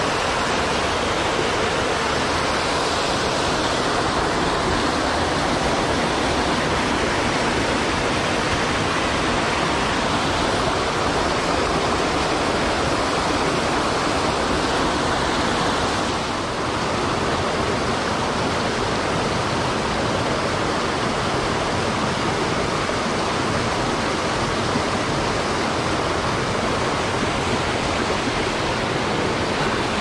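Mountain stream rushing over rocks and small cascades: a steady, even rush of white water, dipping slightly for a moment about halfway through.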